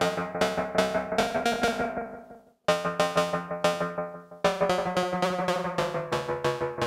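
Modular synthesizer sequence of short, sharply attacked pitched notes in a steady rhythm, its oscillators cross-modulated through a Doepfer A-138m matrix mixer. The notes stop briefly about two and a half seconds in, then resume, the tone growing denser from about four and a half seconds.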